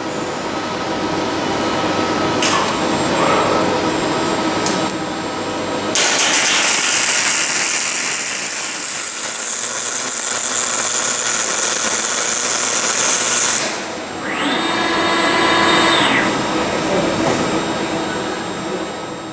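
Robotic welding: the welding arc hisses and crackles steadily for about seven seconds, starting about six seconds in. Around it runs steady machinery sound, with a motor whine that rises, holds and falls near the end.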